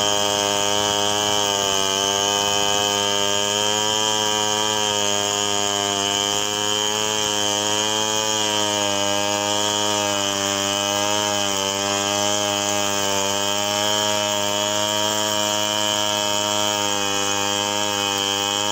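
Large two-stroke chainsaw, an assembled saw of the Stihl 070 type, held at full throttle while ripping lengthwise through a log in freehand milling. Its pitch wavers slightly as the chain bites into the wood.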